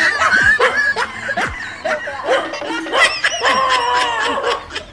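Edited-in laughter sound effect, snickering voices, over background music, with two quick falling tones in the first second or so.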